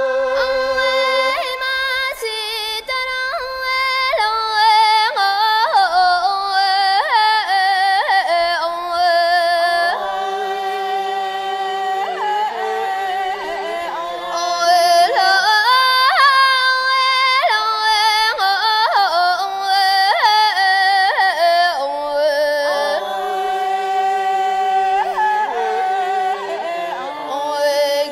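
Tibetan opera (Ache Lhamo) singing: one high voice holding long notes that waver and break into quick ornamented turns.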